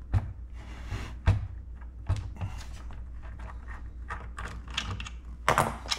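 Irregular clicks and knocks of a small driver and hands working on a 1990s Ford plastic gauge cluster housing as its bolts are taken out, with a sharper knock about a second in and a louder cluster of clicks near the end. A steady low hum runs underneath.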